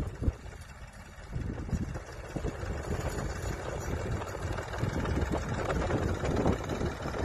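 1966 Massey Ferguson 135's Perkins AD3.152 three-cylinder diesel running as the tractor drives on loose sand, growing louder as it comes closer in the first few seconds.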